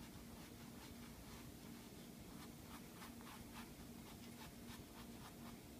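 Small paintbrush stroking acrylic paint onto canvas: a run of short, faint scratchy strokes, busiest in the middle, over a faint low hum.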